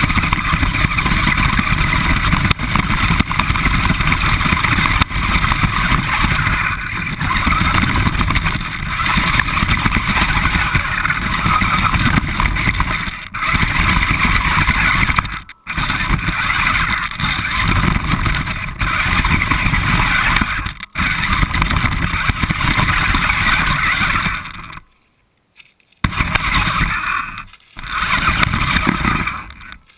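RC car running, heard from a camera mounted on the car itself: a steady, loud motor and drivetrain noise with rumble. It cuts out briefly about 15 seconds in, drops almost to silence for about a second around 25 seconds in, then runs again.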